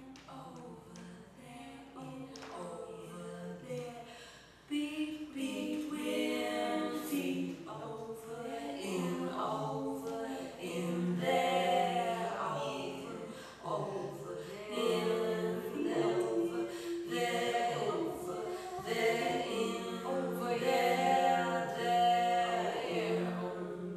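Unaccompanied voices singing together in layered parts, a cappella; the singing grows louder about five seconds in.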